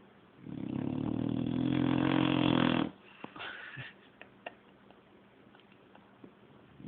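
A sleeping pet snoring: one loud, drawn-out snore with a steady buzzing pitch about half a second in, lasting some two and a half seconds, then a few small snuffles and quiet breathing, with the next snore just starting at the very end.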